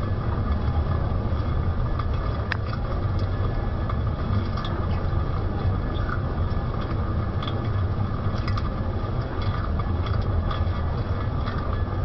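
A lathe running steadily during a turning cut, a constant low hum with a few light clicks scattered through it.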